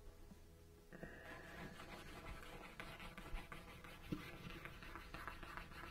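Faint scratchy rubbing of a wooden edge burnisher worked back and forth along the edge of a leather strap, starting about a second in: an initial burnish to lay down the edge fibers.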